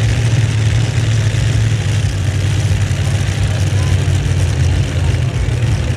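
Heavy modified pulling tractor's engine running steadily, a loud, even low drone with no revving.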